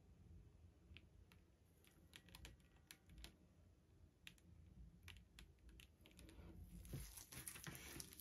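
Faint, irregular light clicks and taps from a stretched canvas being tilted and set back down on its supports, over near silence, with a slightly louder knock and a brief rustle about seven seconds in.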